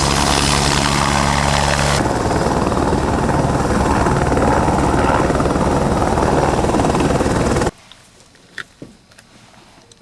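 Helicopter running: a steady engine hum with a hiss, then about two seconds in a rapid rotor chop. It cuts off suddenly near the end.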